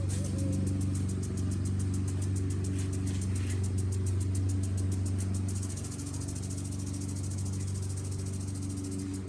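Lawn mower engine running steadily, with the fast, even ticking hiss of a sprinkler over it; the sprinkler's spray gets louder a little past halfway.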